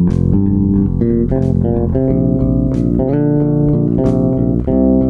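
Background music: bass guitar and guitar playing a stepping riff, with a sharp beat about every second and a half.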